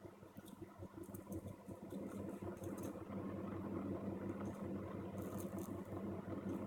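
Faint steady low hum with light, scattered ticks and scrapes of metal tools working the last pins of a USB connector off a circuit board during desoldering.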